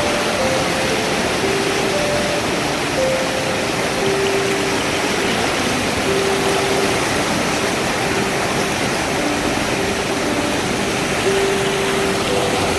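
Steady rushing roar of a waterfall.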